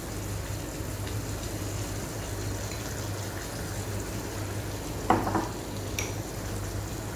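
Ketchup-and-soy sauce sizzling steadily in a hot wok, with a steady low hum under it. A brief sound about five seconds in and a sharp click about a second later.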